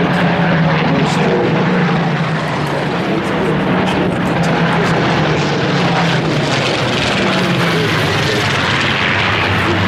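Propeller-driven WWII fighters, Spitfires among them, flying past overhead with a steady, loud drone from their piston engines.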